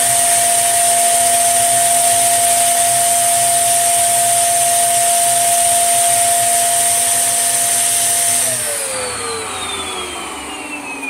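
Tesco own-brand 1800-watt bagless upright vacuum cleaner running steadily with a high motor whine, then switched off about eight seconds in, its whine falling in pitch as the motor spins down.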